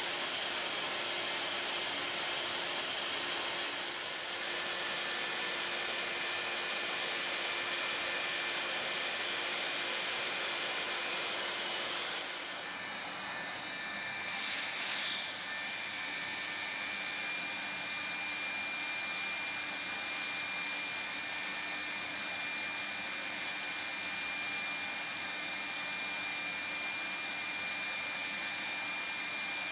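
Hot-air blower of a plastic welding gun running steadily, blowing air set to 260 °C: an even rush of air with a faint high whistle.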